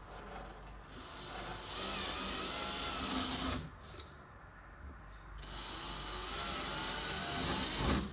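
Handheld cordless drill boring two holes into plasterboard, one after the other: two runs of about three seconds each with a short pause between.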